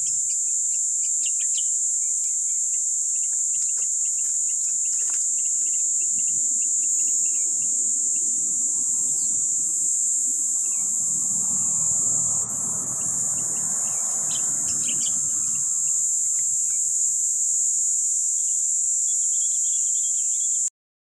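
Insects droning in a loud, steady high-pitched chorus, with scattered short bird chirps. Between about five and sixteen seconds in, rustling and handling noise from someone working among the mangrove branches; the sound cuts off suddenly near the end.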